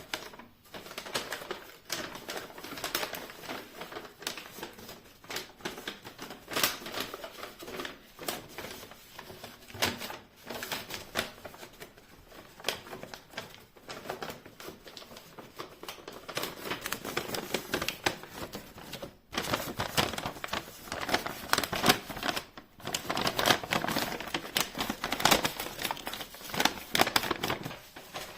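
Close-up handling sounds of a hands-on DIY task: a dense run of quick clicks and taps mixed with rustling, busier in the last third.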